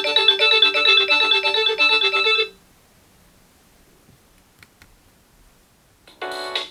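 Nokia 6280 mobile phone playing a ringtone, a quick bright melody of short notes that stops about two and a half seconds in. After a few seconds of near silence with a couple of faint clicks, the next ringtone's melody starts near the end.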